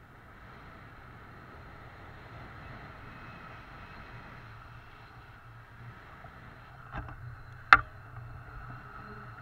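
Airflow rushing steadily over an action camera's microphone during a tandem paraglider flight. About seven seconds in there is a small click, followed by a loud sharp click, the sound of the camera pole being handled as the view swings round.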